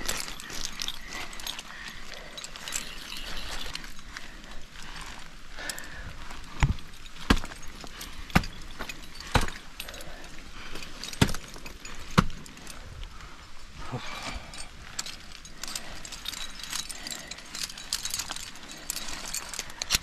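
Ice-climbing hardware on a harness rack jangling: carabiners, quickdraws and ice screws clinking as the climber moves. In the middle there is a run of about six sharp strikes, the ice tools and crampons biting into waterfall ice.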